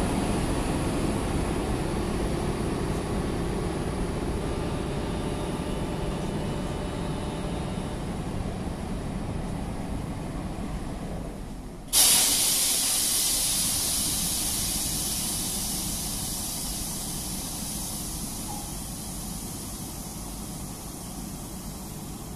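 SNCB class 27 electric locomotive running as it draws M5 double-deck coaches slowly away, its noise fading. About halfway, a sudden loud hiss of compressed air venting from the train starts and tails off slowly.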